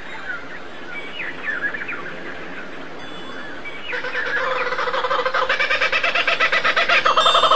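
Birds calling: short falling chirps for the first few seconds, then from about four seconds in a rapid pulsing call that grows steadily louder.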